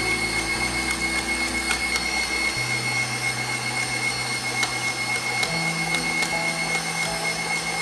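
Electric bowl-lift stand mixer running with its wire whisk beating thick chocolate choux pastry dough in a steel bowl as eggs are added, a steady motor whirr with a thin high whine.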